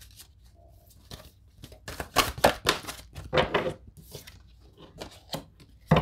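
Tarot cards being shuffled by hand and a card laid down on a table: a run of quick papery snaps and slaps, busiest from about two to four seconds in.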